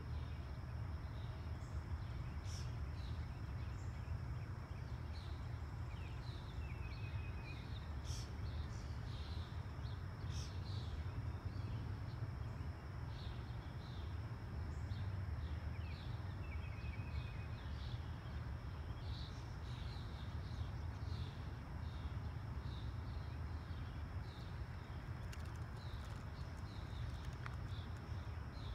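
Outdoor ambience: small birds chirping in short, scattered calls over a steady low rumble, with a faint steady high-pitched tone underneath.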